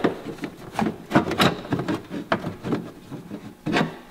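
Plastic under-hood fuse box cover of a 2012 Chevrolet Silverado being unclipped and lifted off: a run of irregular sharp plastic clicks and knocks as the latches release and the cover rubs free.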